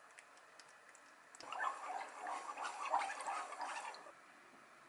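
Wooden chopsticks stirring a creamy sauce in a frying pan: wet sloshing with light clicks of the chopsticks against the pan. It starts over a second in and lasts about two and a half seconds.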